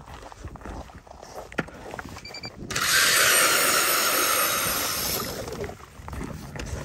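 StrikeMaster power ice auger drilling into lake ice: a loud grinding hiss that starts suddenly about three seconds in, holds for a couple of seconds and then dies away.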